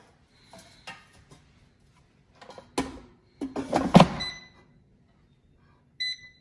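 Tongs and the air fryer's basket drawer knocking and clattering, then the drawer slides into the air fryer and shuts with a loud thump about four seconds in. Near the end the air fryer's control panel gives a short beep as a button is pressed.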